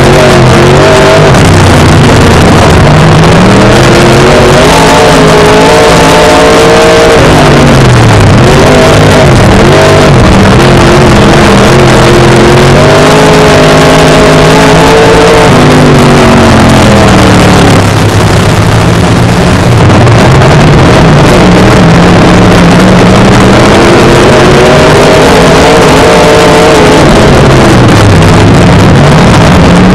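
Dirt-track modified race car's V8 engine, heard loud from inside the car, running hard under racing load. Its pitch drops and climbs again several times as the driver lifts for the corners and gets back on the throttle.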